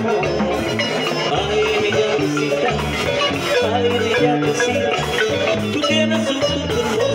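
Marimba ensemble playing an instrumental passage: a wooden marimba melody over electric bass and a drum kit, in a steady dance rhythm.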